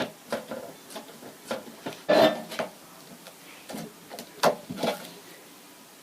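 Homemade clear-glue slime being squished and poked by hand: a string of sharp wet clicks and pops, loudest in a burst about two seconds in and again with a snap near four and a half seconds.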